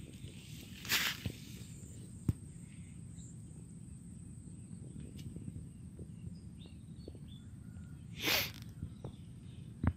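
Outdoor orchard ambience: a steady low rumble, with two short hissing bursts, one about a second in and one near the end, and a single sharp click in between.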